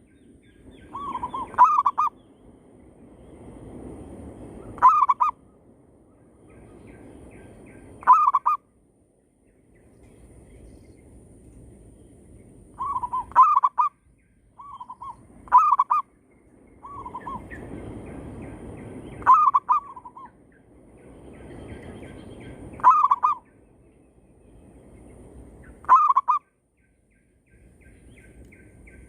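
Zebra doves (perkutut) cooing back and forth, a decoy bird and wild doves answering each other. Short, quick, stuttering coos repeat about every three seconds. Between calls there is a soft rushing noise that swells and fades.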